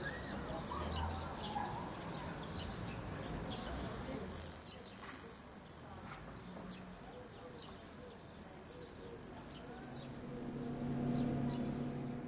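Outdoor ambience of insects chirping in short, scattered calls over a soft background hiss. A low steady hum swells near the end.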